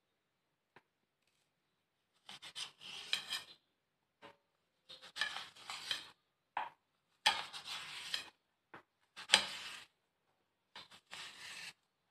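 Kitchen knife cutting a soft white slab into strips on a ceramic plate. It makes about six scraping strokes, each with the blade rasping against the plate, and light clicks between them.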